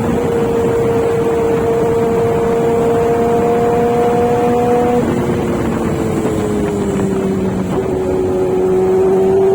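Motorcycle engine running at a steady cruising speed, with wind rushing over the microphone. About five seconds in the engine note drops and keeps gliding lower for a few seconds as the bike eases off.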